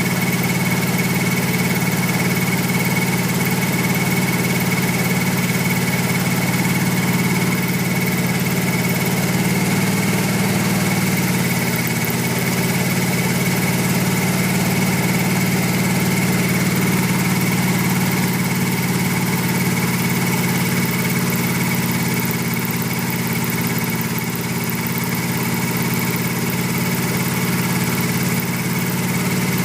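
Wood gas generator's engine running steadily, a continuous low hum with a steady high whine over it.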